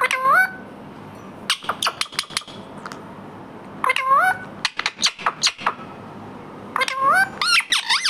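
Indian ringneck parrot calling: three times a rising whistle-like call, each followed by a quick run of short, sharp calls.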